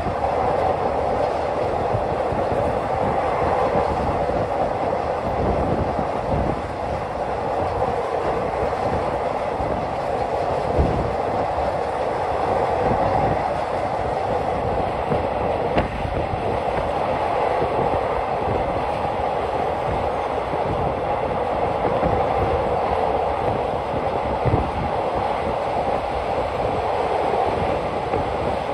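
Passenger train carriages running at speed on elevated track, heard from an open window: a steady rumble and rush of wheels and wind, with a few sharp clicks along the way.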